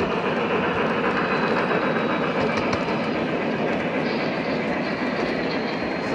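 Model trains rolling along the layout track close by, wheels on rail making a steady rumble.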